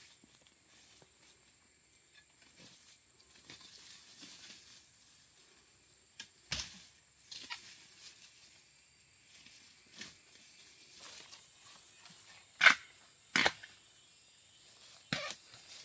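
Scattered sharp snaps and cracks of plant stems breaking, with faint rustling of forest undergrowth between them. The two loudest cracks come close together about two-thirds of the way in.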